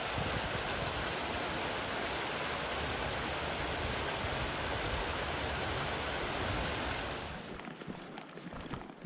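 Steady rushing noise that drops away suddenly about seven and a half seconds in, leaving a quieter background with scattered light clicks.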